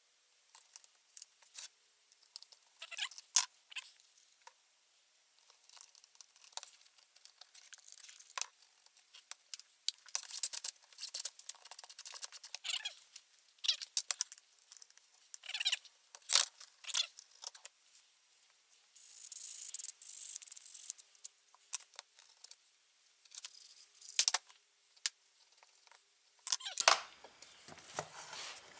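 Small clicks, taps and rattles of metal and plastic parts being handled while the little springs are fitted back into a push mower's recoil pull-start assembly, with a longer scraping sound about two-thirds of the way through.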